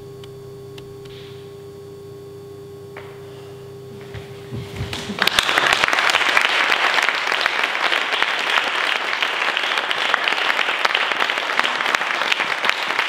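A steady low hum, then an audience breaks into applause about five seconds in, swelling within a second and continuing steadily.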